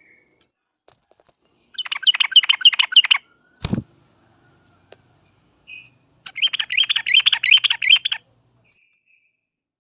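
Yellow-vented bulbul (trucuk) singing in two bursts of rapid, chattering notes, each about two seconds long, with a gap of a few seconds between them. A single sharp knock falls between the bursts.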